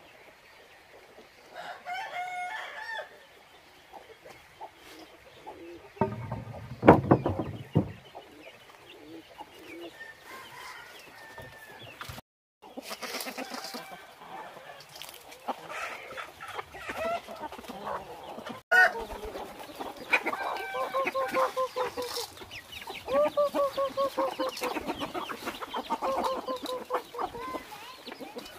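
Chickens clucking and roosters crowing in a farmyard flock as they are fed. A loud, low noise of a couple of seconds comes about six seconds in, and the crowing and clucking are busiest in the last third.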